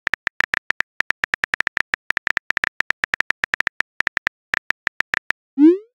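Simulated iPhone keyboard key-tap clicks, rapid and even, as a message is typed. A short rising whoosh near the end is the message-sent sound.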